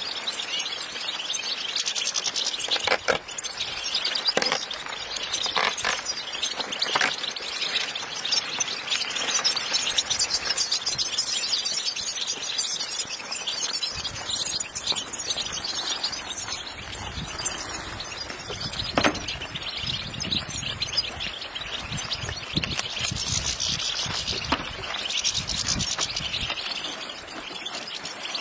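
A flock of European goldfinches chirping and twittering as they are let out of their crates. From about halfway on, empty wooden crates knock and clatter as they are stacked.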